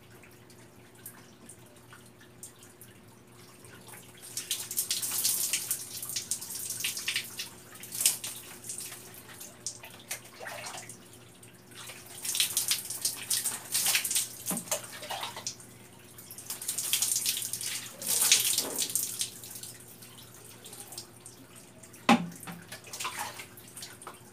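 Water scooped from a bucket with a plastic dipper and poured over the body, splashing onto the floor in three main pours of a few seconds each, with dripping between them. A sharp knock near the end.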